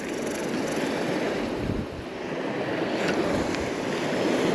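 Small surf waves washing onto a sandy beach, swelling and easing, with wind rumbling on the microphone. A couple of faint ticks around three seconds in.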